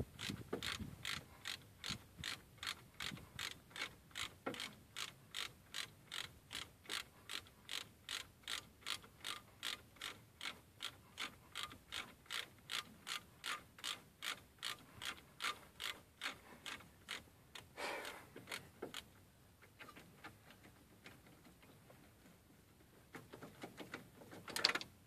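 Hand ratchet wrench clicking in an even rhythm, about two to three strokes a second, backing out the bolts that hold the Dana 30 front hub bearing assembly. The ratcheting stops about two-thirds of the way through, followed by a few scattered metal knocks and a sharper clack near the end.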